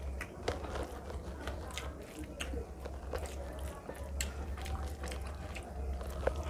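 Close-up chewing of rice and fish curry eaten by hand, with many short wet mouth clicks scattered throughout. A steady low hum runs underneath.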